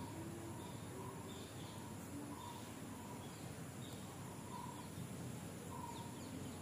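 Faint outdoor ambience: birds chirping in short calls about once a second, over a steady background hiss with a thin high whine.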